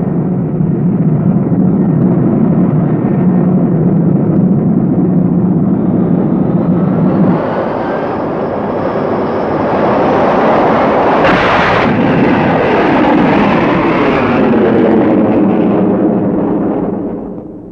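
Jet fighter engines running at high power, then a take-off with afterburners lit. The sound changes about seven seconds in to a whine that shifts in pitch, with a sharp loud blast about eleven seconds in, and fades out near the end.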